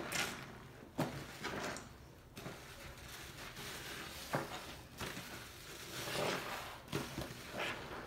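Soapy, foam-soaked sponges squeezed and wrung by hand in a sink of sudsy water: wet squishing of foam and water in irregular bursts, with a few sharper splats.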